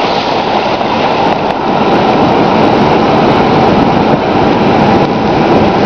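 Fast-flowing floodwater rushing and churning past a truck's side and tyres: a loud, steady rush of water.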